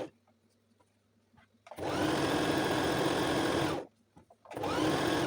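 Brother electric sewing machine stitching in short runs. It stops right at the start, with a few faint clicks in the quiet, then runs steadily for about two seconds and stops again. Near the end it restarts, its motor whine rising as it speeds up.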